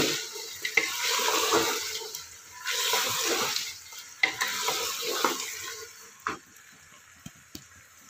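Mutton sizzling in an aluminium pressure cooker while a wooden spatula stirs it, with scraping and knocks against the pot. About six seconds in the stirring stops and the sizzle drops much lower, leaving a few clicks.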